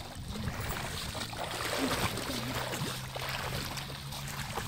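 Footsteps wading through shallow river water, splashing with each step over the sound of the flowing water. A faint steady low hum joins in from about halfway through.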